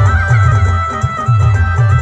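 Adivasi timli band playing a tur-tone tune through a big sound system. A lead melody holds notes and steps between them over a heavy, pulsing bass beat.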